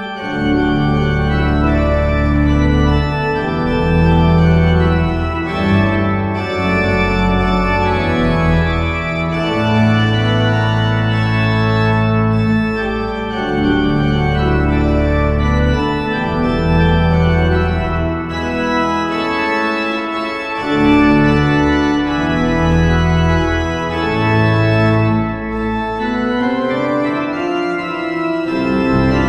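Hauptwerk virtual pipe organ playing slow, held chords over deep bass notes, the harmony changing every second or two.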